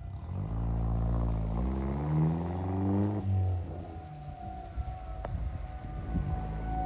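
A vehicle engine revving up as it accelerates, its pitch rising for about three seconds. After that an outdoor warning siren sounds a long steady tone that sags slightly in pitch near the end, with a couple of short clicks.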